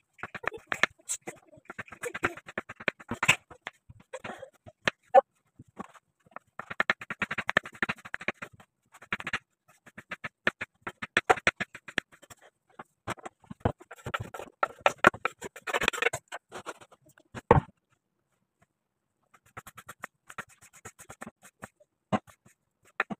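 Kitchen knife slicing raw potatoes on a wooden cutting board: quick runs of sharp taps as the blade strikes the board, with short pauses between runs. The tapping stops for about two seconds near the end, then green chillies are chopped the same way.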